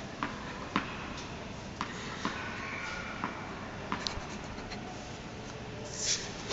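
A tennis ball bouncing on a court, a series of short, sharp taps at uneven intervals, as the server bounces it before serving.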